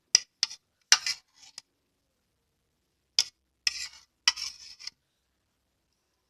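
Cutlery clinking and scraping against a bowl while eating: a few sharp clinks in the first second or so, then a pause, then another clink and two short scrapes a little past the middle.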